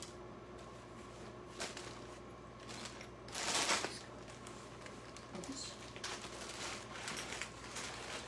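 Small handling noises: light clicks and rustling as small plastic-and-metal flashlights are worked open to fit batteries, with a louder rustle about three and a half seconds in.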